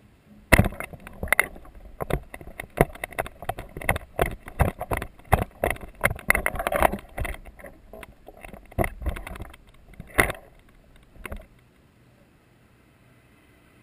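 Handling noise from the camera being picked up and moved by hand: a dense, irregular run of knocks, bumps and rubbing right on the microphone. It starts about half a second in and stops near the end.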